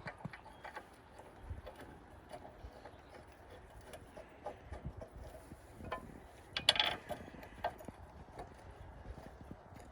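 Scattered light clicks and knocks of hand tools and metal parts being handled while working on a car's rear axle, with a louder clatter about seven seconds in.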